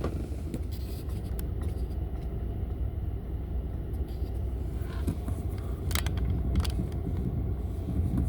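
Car running at idle, a steady low rumble heard from inside the cabin, with a few sharp clicks about a second in and again around five and six seconds in.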